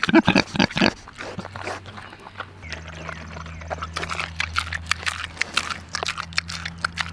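Pigs grunting close up in the first second, then snuffling and chewing feed from a pan with many short crunching clicks. A steady low hum sets in under it about two and a half seconds in.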